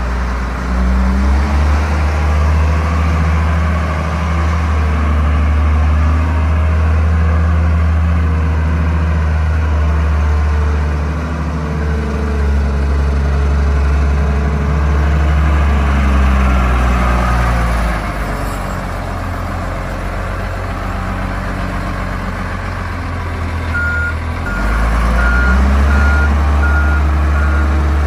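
1995 Case 621B wheel loader's 5.9-litre Cummins diesel running as the machine drives, revving up early on, easing off past the middle, then revving again. Near the end its backup alarm beeps about twice a second as it reverses.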